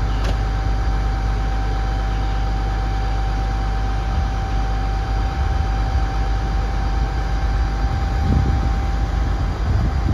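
The barge-mounted crane's diesel engine running steadily during the lift: a constant low hum with a steady whine above it.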